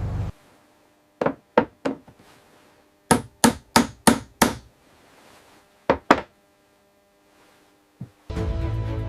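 Sharp knocks or hammer-like blows in short groups: three, then a quick run of five at about three a second, then two more, with a faint one near the end.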